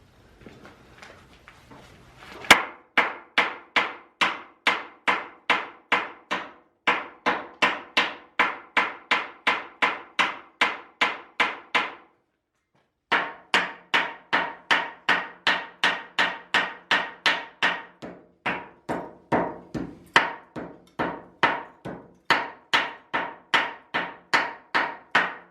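A hammer striking metal on the old boiler in a steady run of ringing blows, about two a second. The blows start about two seconds in and stop briefly midway before going on.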